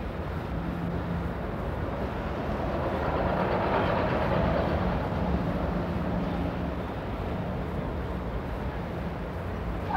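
City street traffic noise: a steady rumble of vehicles that swells a few seconds in and then eases back.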